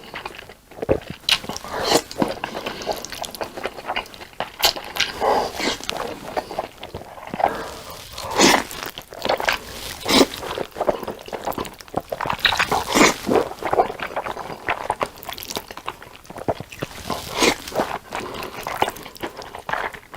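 Close-miked eating: mouthfuls of black bean noodles (jajangmyeon) being chewed, with irregular wet smacks and crunches.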